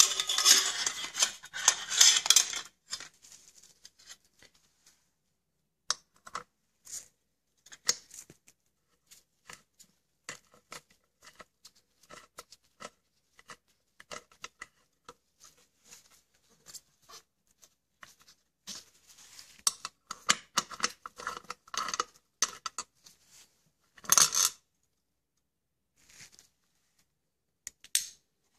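Socket ratchet clicking rapidly for a few seconds as an 8 mm screw is backed out of a scooter's variator cover. After that come scattered light metallic clicks and clinks of tools and screws being handled, with one louder metal clink about 24 seconds in.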